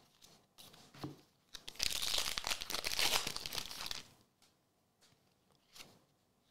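A foil trading-card pack wrapper torn open and crinkling: about two seconds of dense crackling, starting near two seconds in. A few light clicks of cards being handled come before and after it.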